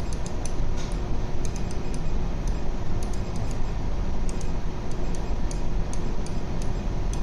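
Steady low hum of a ship's bridge, with many light clicks at irregular intervals over it.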